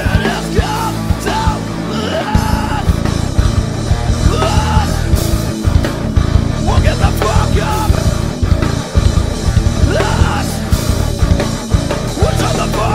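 A rock band playing live at full volume: a drum kit with cymbals, distorted electric guitars and bass, and a singer's voice over them.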